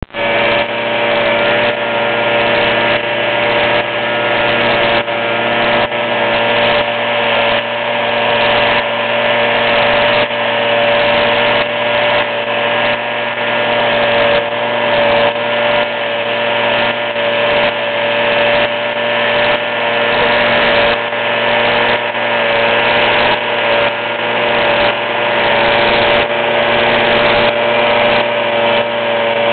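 Small engine of a two-man tea harvesting machine running steadily at speed while its cutter shears the tops of tea bushes.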